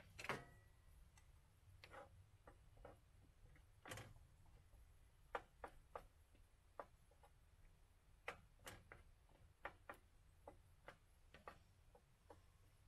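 Faint, scattered ticks and clicks from a pan of chicken breast and baby carrots simmering in liquid, with a wooden spatula pushing the carrots against the pan.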